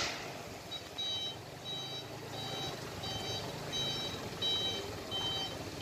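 Truck's reversing alarm beeping repeatedly, about three short high beeps every two seconds, over the low, steady hum of the truck's engine.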